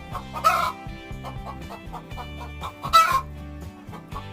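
Chickens clucking at the coop, with two loud short squawks, about half a second in and about three seconds in. Background music with a stepping bass line plays under them.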